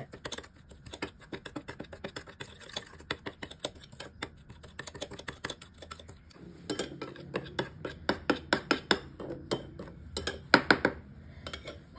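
Metal spoon stirring and scraping thick shrimp-paste sauce in a small glass bowl, in quick ticking strokes, mixing until the sugar and shrimp paste dissolve. The spoon clinks against the glass more loudly, with a slight ring, from about seven seconds in until shortly before the end.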